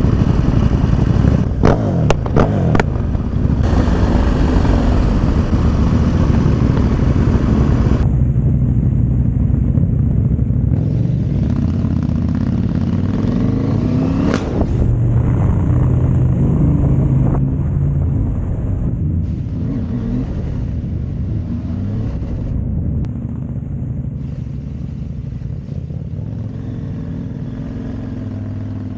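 Motorcycle being ridden, its engine running continuously and rising and falling in pitch with the throttle, with a few sharp clicks about two seconds in.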